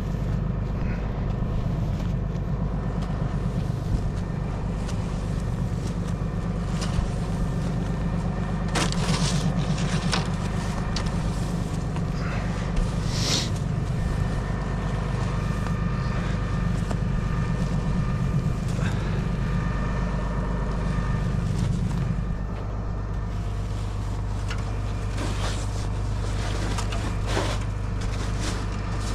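Honda snowblower engine running steadily, with scattered short clicks and scrapes over it; its note drops about 22 seconds in.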